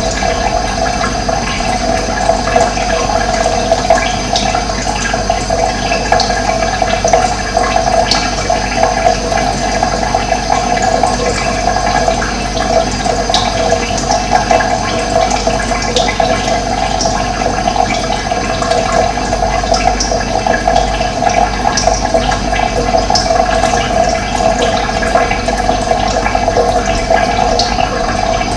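Running water, a steady unbroken flow, with occasional short, faint bird chirps above it.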